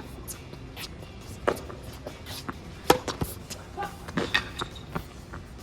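Tennis rally: sharp racket strikes on the ball and ball bounces on the court, a second or so apart. The loudest hit comes about three seconds in, and a quick cluster of hits and bounces follows about four seconds in.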